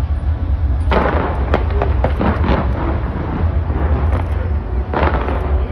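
Fireworks going off: a dense volley of bangs and crackles begins about a second in over a continuous low rumble, with another strong burst near the end.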